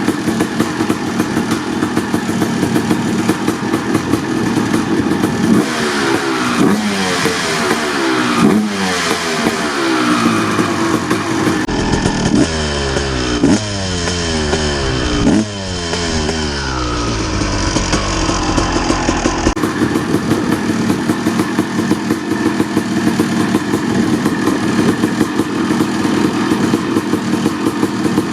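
1989 Honda CR250R two-stroke engine, fitted with an FMF Gnarly expansion pipe, running through its cold-start warm-up. It idles with a steady rhythm, and is blipped several times in the middle, the revs rising and dropping back each time before it settles to idle again.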